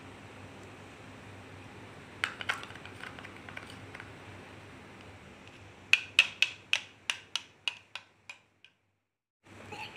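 Plastic spoon stirring in a cup: a couple of knocks a little over two seconds in, then a run of about a dozen light clicks that fade away, over a steady background hiss.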